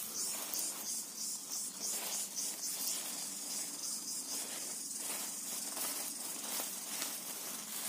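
A steady high-pitched insect chorus, with soft rustling of bitter gourd leaves and dry straw mulch as the vines are parted by hand.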